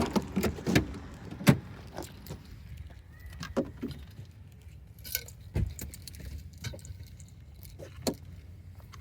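Irregular clinks and rattles, like keys or small metal gear jangling, as carried gear jostles while walking, over a low rumble.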